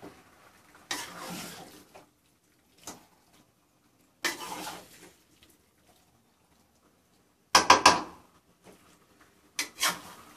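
Metal spatula stirring raw chicken and onions in a metal kadai on a gas stove: short scraping bursts about a second in and again about four seconds in. Then a quick run of sharp clanks of spatula on pan, the loudest, at about seven and a half seconds, and a few more near the end.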